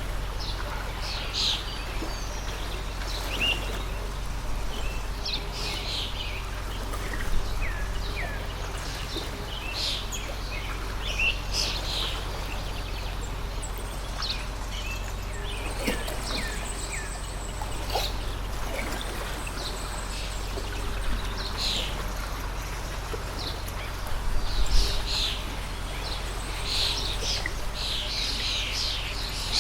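Small birds chirping and calling over the steady rush of a flowing stream, with the chirps busiest near the end.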